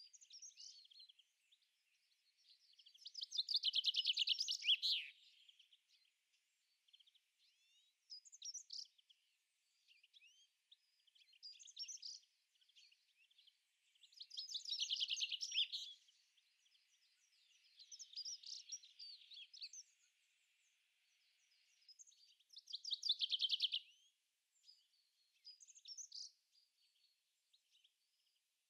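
A songbird singing outdoors: three loud song phrases of about two seconds, each a fast trill, with shorter high chirps and calls between them.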